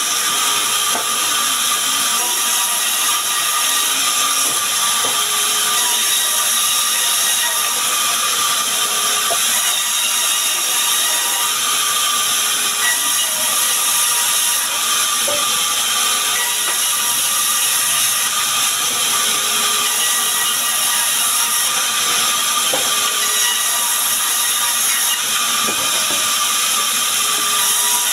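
Sawmill band saw running steadily while its blade rips small sengon (albizia) logs into boards: a continuous hissing cut with a high whine.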